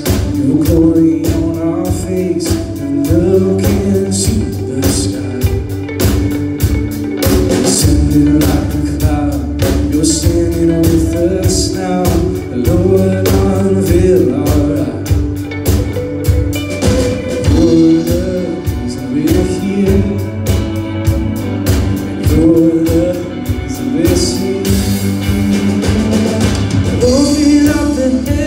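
Live rock trio playing an instrumental passage: electric bass, drum kit with a steady beat of drum and cymbal hits, and electric lead guitar carrying a bending melody.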